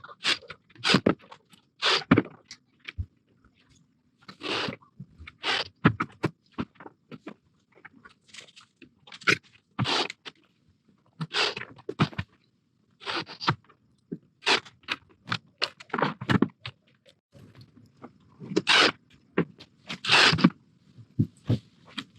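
A string of short, irregular scraping and crunching bursts, roughly one a second, from parts and screws being handled while caster wheels are fastened onto a bucket dolly.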